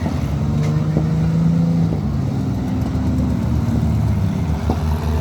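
Demolition derby cars' engines running and revving, their pitch rising and falling, with a few light knocks.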